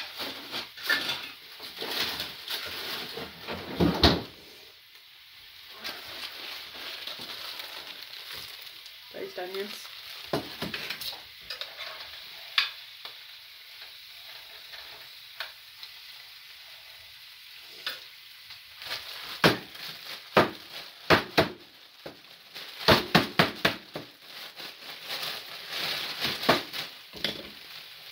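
Sausages sizzling in a frying pan, with metal tongs clicking and clinking against the pan as they are turned, the clinks coming thick and fast in the second half. A loud knock about four seconds in.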